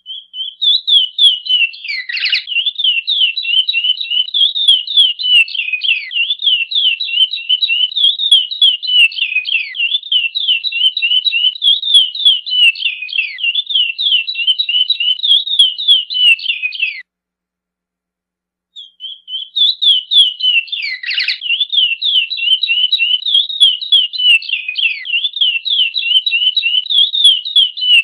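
Chestnut-bellied seed finch (curió, Oryzoborus angolensis) singing the 'praia' song type: a long, fast run of high, down-slurred whistled notes. The song breaks off about 17 seconds in and starts again after a pause of under two seconds. About two seconds into each stretch of song there is one deeper downward swoop.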